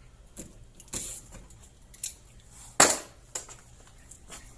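A few scattered sharp clicks and knocks of hard objects being handled, with light clinks; the loudest knock comes a little under three seconds in and fades briefly.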